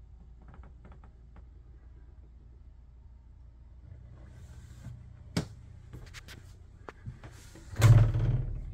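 Wooden wardrobe cabinet door pulled open by its handle near the end: a latch click and a short knock. Before it, scattered light clicks over a low steady hum.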